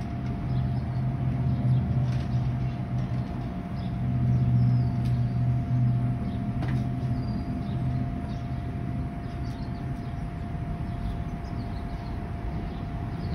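Electric blower of an inflatable water slide running steadily, a constant hum, with a deeper rumble that swells twice in the first eight seconds and then eases. Faint bird chirps.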